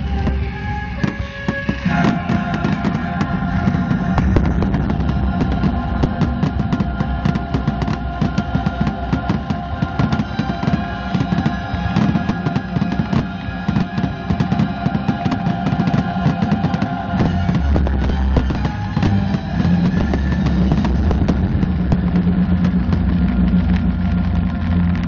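Music with long held notes, mixed with a dense run of sharp bangs and crackles from aerial fireworks shells bursting.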